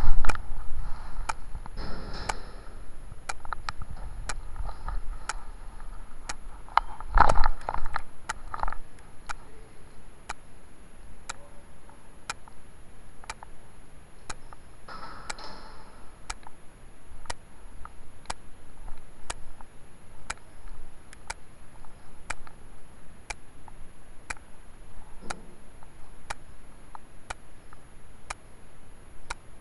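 Steady, evenly spaced ticking, a little under two ticks a second, with a few muffled bumps and rustles; the loudest comes about seven seconds in.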